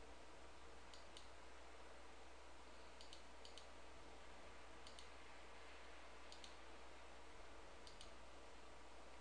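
Faint computer mouse clicks, about six times, most of them a quick press-and-release pair, over a low steady hum.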